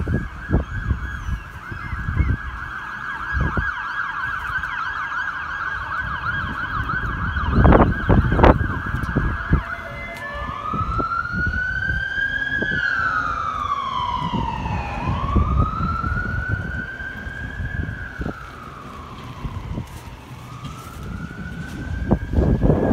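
Fire and rescue vehicle's siren on an emergency run: a fast warbling yelp for about ten seconds, then a slow wail rising and falling about twice. A couple of low thumps come about eight seconds in.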